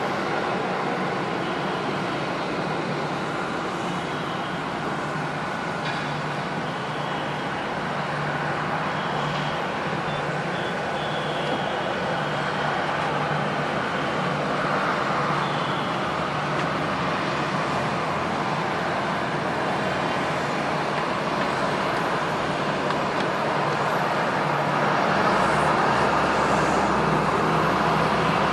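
Jet airliner engines running, a steady rushing noise with a low hum that grows a little louder near the end.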